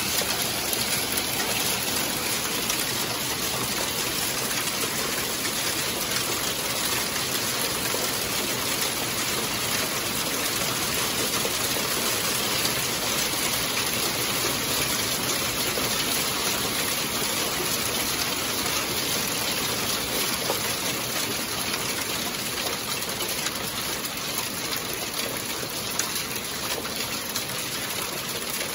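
Small hail mixed with rain falling steadily, a dense, even patter on a corrugated roof and the ground, easing slightly near the end.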